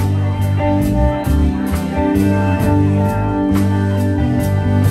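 Live blues band playing an instrumental passage between vocal lines: guitar notes over bass and drums, with cymbal taps about twice a second.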